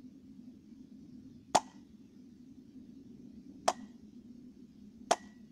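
Three sharp strikes of a rubber mallet on the top of a water-filled glass bottle, meant to drive a pressure pulse through the water. The strikes come about two seconds apart, then a second and a half apart.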